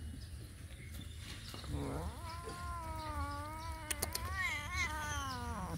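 A cat's long, drawn-out meow of about four seconds, starting about two seconds in: it rises, wavers in pitch and falls away at the end.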